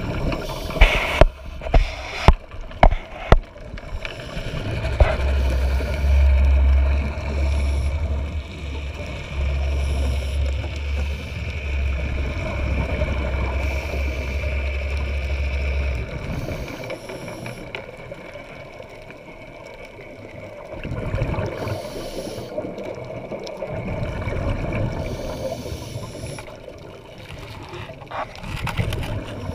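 Underwater sound picked up by a camera in its waterproof housing: a few sharp clicks in the first few seconds, then a steady low drone for about ten seconds over a constant water hiss, which fades to the hiss alone.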